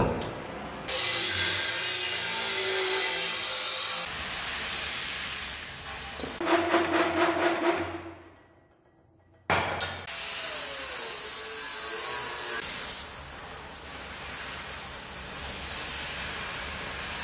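Steel angle being cut with several tools in separate clips joined by abrupt edits: the steady hiss of an oxy-fuel cutting torch, and a short run of rapid strokes from a reciprocating saw, with a brief drop to near silence just past halfway.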